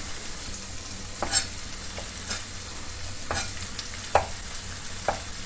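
Spike cap mushrooms frying in a pan, a steady sizzle, with five short sharp taps about a second apart.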